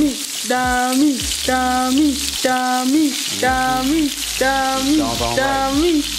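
Ground-beef burger patties sizzling in their fat on an electric griddle, with spatulas pressing and scraping them. Over it runs a background music loop, one held pitched note about every second, each ending in a short bend.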